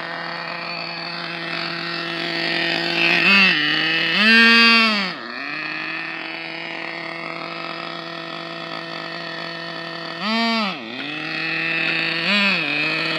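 Small nitro RC car engine idling steadily, revved in four short throttle blips that rise and fall in pitch, the longest about four seconds in. The car's radio is lagging, which the driver blames on dead batteries.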